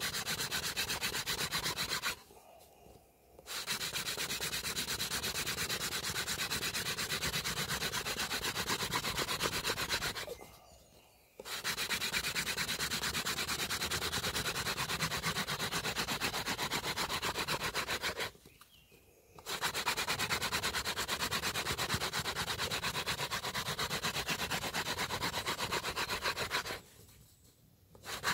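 Hand-drill fire-making: a hazel-wood spindle spun rapidly back and forth in the socket of a dry bay laurel hearth board, a steady, fast wood-on-wood rubbing as it grinds out the dark dust that is to form an ember. The rubbing stops four times for about a second each and then starts again.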